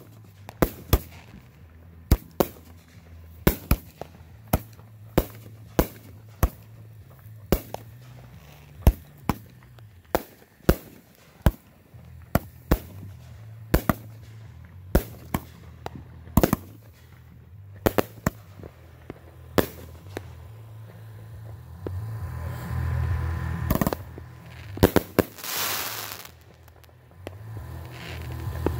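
Fireworks going off: sharp bangs about two a second for some twenty seconds, then a louder stretch of low rumbling with a long hissing burst about 25 seconds in.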